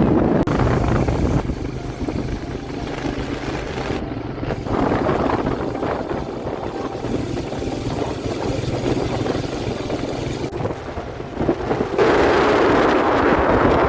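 Wind rushing over the microphone of a moving vehicle, with a steady low engine hum beneath it. The sound changes abruptly several times and is loudest near the end.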